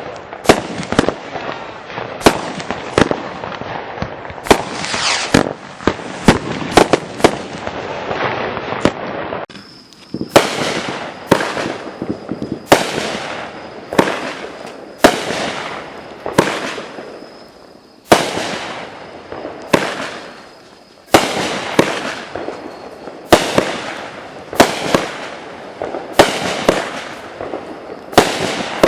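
200 g consumer fireworks cakes firing shot after shot, about one to two sharp reports a second, with crackling between the reports. There are a few brief pauses in the firing.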